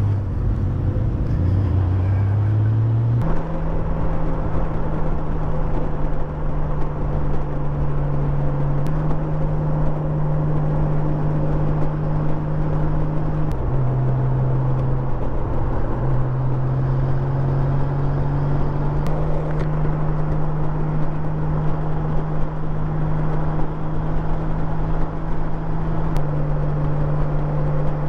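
Touring motorcycle's engine running steadily at road speed, heard from the rider's seat with wind rush. Its low drone jumps abruptly in pitch several times.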